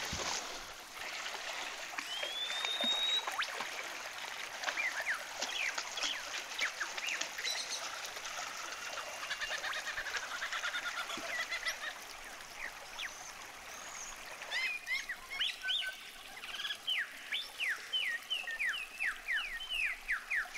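Bird calls, many short whistled chirps and down-slurred notes, over the steady rush of a shallow river. There is a rising whistle early on, and a quick run of repeated down-slurred chirps in the last few seconds.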